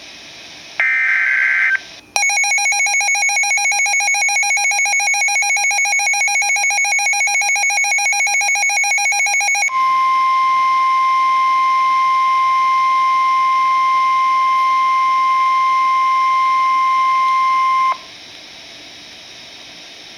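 NOAA Weather Radio alert sequence: one short burst of screeching SAME data tones, then a rapidly pulsing electronic alarm beep for about seven seconds, then the steady 1050 Hz warning alarm tone for about eight seconds, which stops abruptly. The tones signal that a warning is about to be read.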